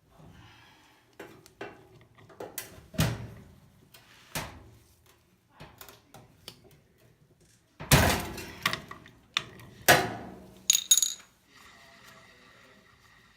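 Irregular sharp knocks and clanks of tools and metal dryer parts being handled, a dozen or so in all, with the loudest cluster a little past halfway.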